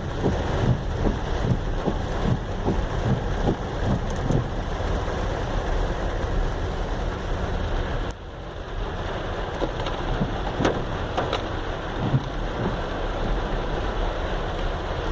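Car on a flooded street in a heavy rainstorm: the vehicle's engine and steady rain and water noise, with many short ticks on top. The noise drops briefly about eight seconds in.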